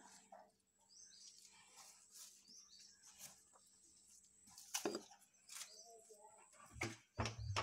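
Faint, repeated short high chirps of small birds, with a few sharp knocks and low bumps about five seconds in and again near the end.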